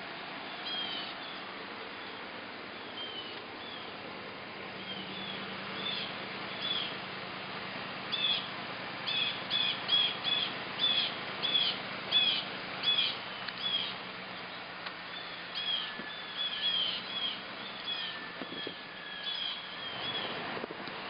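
Birds chirping over and over in short, hooked calls, thickest in the middle, over a steady low hum.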